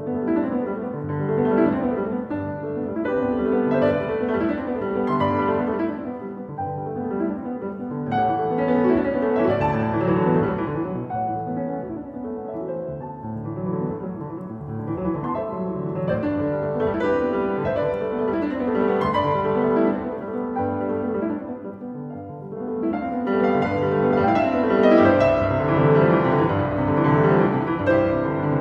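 Background piano music, a slow flowing solo piano piece.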